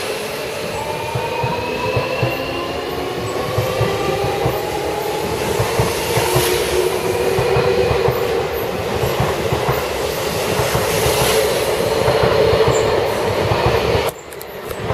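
Seibu 40000 series electric train pulling out of the station and gathering speed past the platform. Its traction motors whine, rising in pitch, over a steady rumble and clatter of wheels on the rails. The sound drops sharply about a second before the end.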